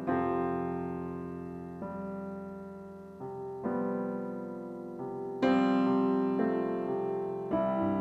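Background solo piano music: slow, gentle chords struck every second or two, each left to ring and fade before the next.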